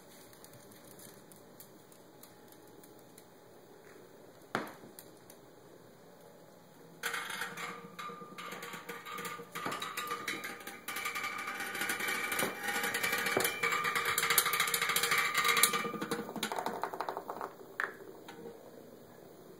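A Hexbug robot bug toy buzzing and clattering as its vibration motor drives it across the floor. It is faint at first, with a single tap about four and a half seconds in. About seven seconds in it becomes a loud, dense rattle, which dies away near the end.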